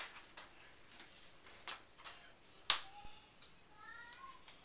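Quiet small room with a few scattered sharp clicks and taps, the loudest a little under three seconds in, and a faint brief pitched sound about four seconds in.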